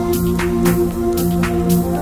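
Background electronic music with a steady beat over held synth tones.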